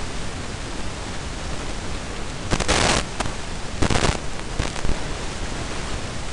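Steady hiss of recording noise, broken about two and a half and four seconds in by two short bursts of louder noise, with a fainter one just after.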